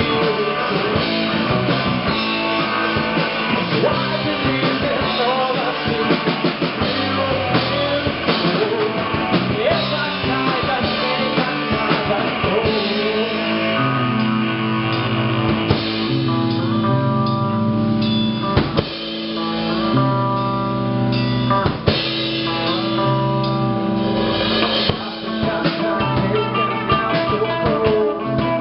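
Live rock band playing: electric guitars, bass and drum kit in a loud amplified performance, with a stretch of held, heavier chords partway through.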